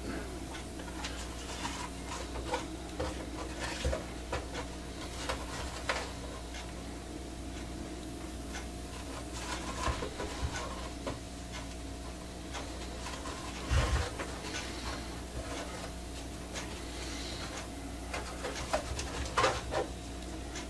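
Braided cord being pulled through punched holes in stiff vegetable-tanned leather helmet plates, with the leather rubbing and scuffing under the hands: scattered soft rubs and small clicks, a few a little louder, over a steady low hum.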